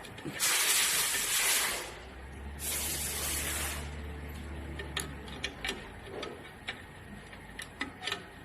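Two bursts of hissing spray, each a little over a second long, the first the louder; afterwards a few light metal clicks and ticks of small sewing-machine parts being handled.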